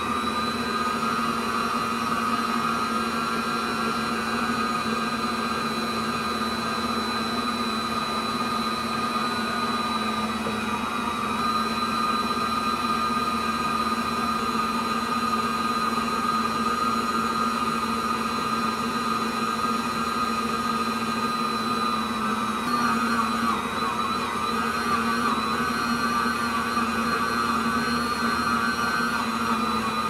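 Electric stand mixer's motor running steadily with a high whine, turning a dough hook through flour for bread dough. From about two-thirds of the way through its pitch wavers as the dough begins to clump under the hook.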